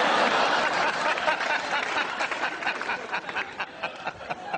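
Studio audience laughing and clapping after a punchline, loud at first and fading through the seconds.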